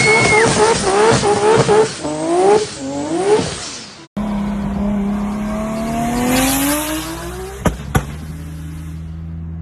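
Modified Nissan GT-R engines in two clips. First, an engine revs hard in quick rising bursts, with a high squeal at the start. After a sudden cut, another engine climbs steadily in pitch, lets out two sharp bangs, then settles to a steady idle.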